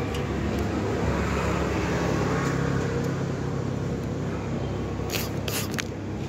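A steady engine hum, with a few short, sharp hisses about five seconds in.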